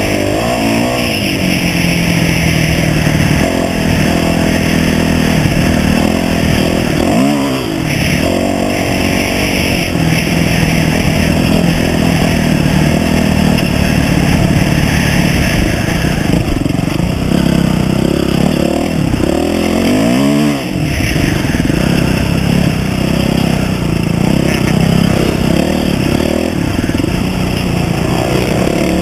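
Dirt bike engine running under way on a sandy trail, heard from the bike itself; the engine note dips and climbs back up twice, about seven and twenty seconds in.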